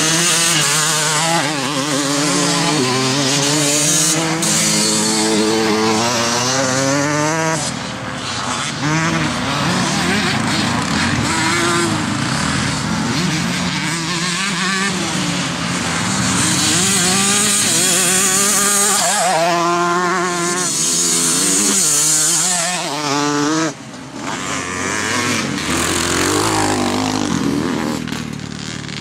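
Evo-class twinshock motocross bikes racing, several engines at once, revving up in rising runs that drop back at each gear change as bikes pass and pull away.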